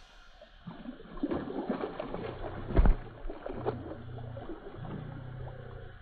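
Creek water splashing and sloshing in the shallows as a hand lets a smallmouth bass go, with irregular small splashes and one louder thump about three seconds in.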